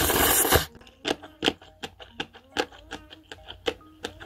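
A loud slurp of cup ramen noodles that cuts off about half a second in. It is followed by wet chewing clicks, a few a second, over a light plinky background music melody.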